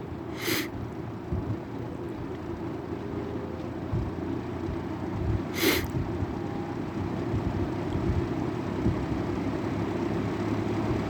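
Kmart P23 shop fan running on medium from a cold start, its motor still sluggish and gradually speeding up, the airflow noise slowly growing louder. Two short clicks, about five seconds apart.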